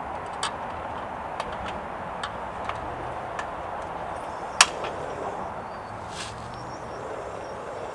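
Light clicks and knocks of cookware and utensils being handled at a camp-stove table, over a steady background rush. One sharper click comes about four and a half seconds in.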